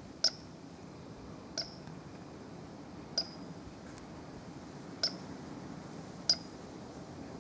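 Eurasian coot giving five short, sharp 'pitt' calls, one to two seconds apart, in alarm at a swimming mink. The first and last calls are the loudest, over a steady low background hiss.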